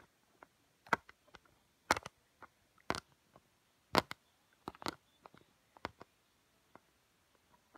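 Plastic LEGO pieces clicking and tapping against a LEGO baseplate as they are handled: a string of irregular sharp clicks, the loudest coming about once a second in the first half, with a quick cluster a little before the middle and fainter taps after.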